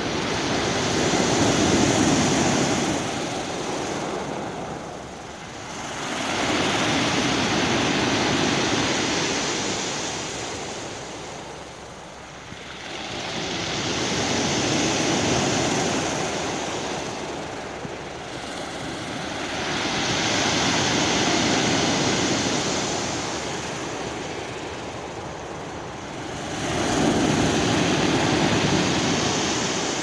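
Sea waves breaking and washing up a round-pebble beach. The surf swells and falls away about five times, one wave every six to seven seconds.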